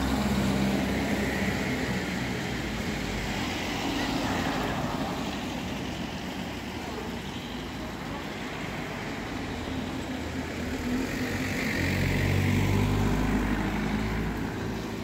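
Car traffic on a town street: steady engine and tyre noise, with an engine note growing louder about twelve seconds in.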